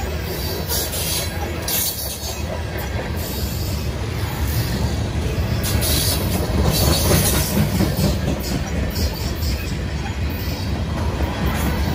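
Covered hopper cars of a grain train rolling past at close range: a steady low rumble of wheels on the rails with high-pitched rail noise that comes and goes, growing a little louder about halfway through.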